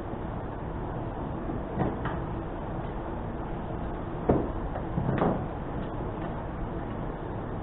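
A few sharp knocks and clunks of metal parts being handled as a winch is stripped down, the loudest a little past the middle, over a steady background rumble.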